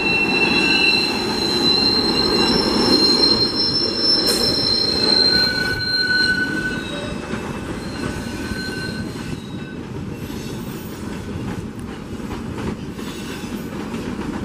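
SEPTA Silverliner IV electric commuter train rounding a curve, its wheels squealing in several high, steady tones over the rumble of the cars. About halfway through the squeal fades, leaving a quieter rolling rumble with scattered clicks.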